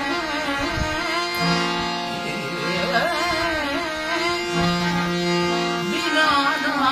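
A man singing with an ornamented, gliding melody, accompanied by his own hand-pumped harmonium holding steady sustained notes under the voice.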